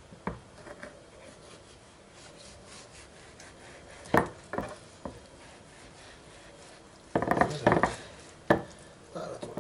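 Long kitchen knife working on a wooden cutting board while slicing cured salmon: scattered knocks and scrapes of the blade against the wood. A few knocks come about four seconds in, and a quick run of them a little after seven seconds.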